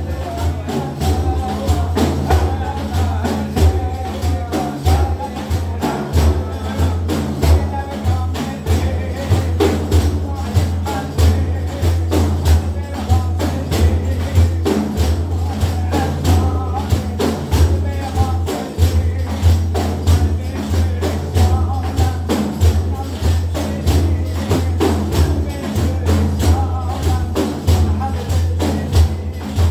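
Several large frame drums (def) beaten together in a steady, unbroken rhythm, with a voice singing a Sufi hymn over them.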